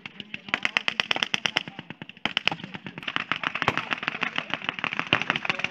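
Machine-gun fire firing blanks in long rapid bursts, about ten shots a second, with a short lull about two seconds in.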